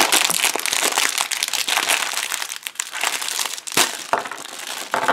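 Plastic candy bag being torn open and crinkled by hand, with the foil-wrapped chocolate cups inside rustling against the plastic; a couple of sharper snaps near the end.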